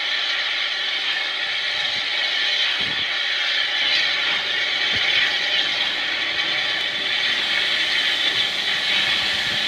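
Steam locomotive running slowly tender-first along the line: a steady hiss with a few low knocks.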